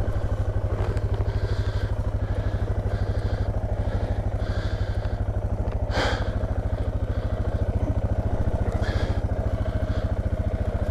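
Suzuki DR650's single-cylinder four-stroke engine idling steadily with an even, rapid beat. A single sharp clack comes about six seconds in, and a fainter one near the end.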